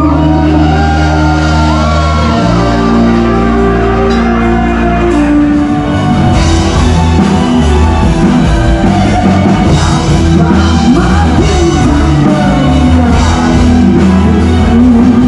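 Live rock band playing loudly with a lead singer, in a large hall; cymbals come in more strongly about six seconds in.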